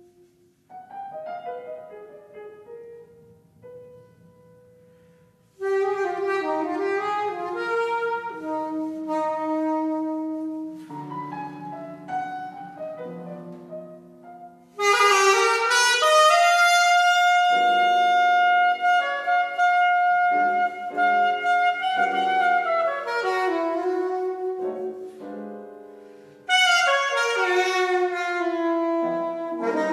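Live jazz: soprano saxophones playing long held notes and quick runs with piano. The music is sparse and quiet for the first few seconds, then the horns come in loudly about five seconds in, again around fifteen seconds, and near the end.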